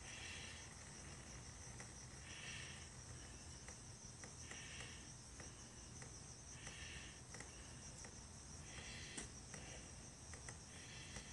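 Insects chirping in the background: short trills repeat about every two seconds over a steady high-pitched insect hum. A few faint ticks are scattered through it.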